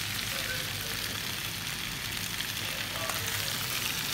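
Sliced tomatoes, onion and garlic sizzling in oil in a nonstick pan, a steady hiss, with a plastic spatula stirring through them; the tomatoes are starting to give up their juice.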